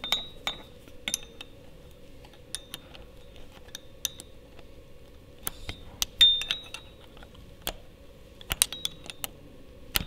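Open-end spanner clinking against the steel counter nut and screwdriver shank while the counter nut of an actuator hand wheel's worm screw is tightened. The spanner is refitted stroke by stroke, giving irregular sharp metallic clinks, some ringing briefly, the loudest about six seconds in.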